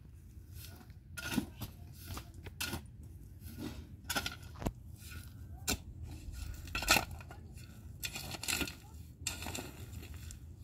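Irregular clinks, knocks and scrapes of objects being handled, a dozen or so sharp strikes at uneven intervals, the loudest about 7 seconds in.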